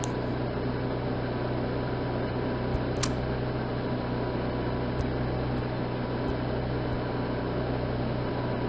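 Steady low electrical hum with an even hiss, like a fan or air conditioner running in a small room. A couple of faint clicks come about three and five seconds in.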